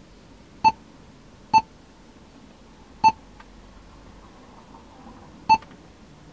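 Touch-key beeps from an Android car head unit's touchscreen: four short, identical beeps at uneven intervals, one for each tap on the screen.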